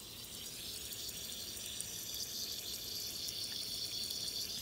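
A small piece of lithium fizzing on the surface of water as it reacts and gives off hydrogen bubbles: a faint, steady high hiss that grows slightly louder.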